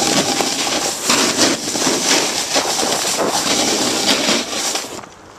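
Continuous scraping hiss of a downhill run over packed snow, with wind rushing on the microphone and frequent short crackling scrapes. The sound drops away suddenly near the end.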